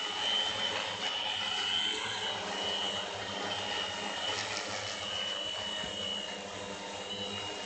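ST800 multicopter's electric motors and propellers holding a low hover: a steady buzzing hum with a high thin whine that wavers slightly in pitch.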